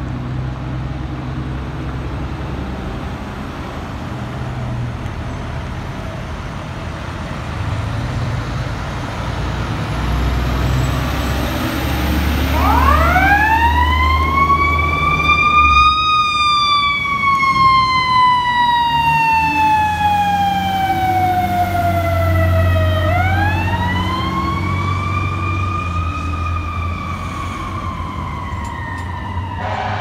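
Fire truck siren winding up about midway, then sounding a slow wail: a long fall in pitch, a rise, and a fall again. Before it, there is the low rumble of city traffic and idling truck engines.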